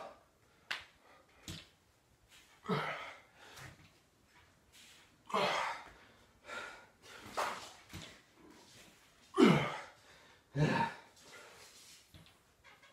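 A man's forceful grunting exhalations, straining through a set of pull-ups, with a short burst every second or two. A couple of faint clicks come near the start.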